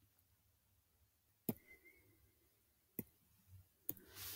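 Three separate computer mouse clicks, short and sharp, with near silence between them.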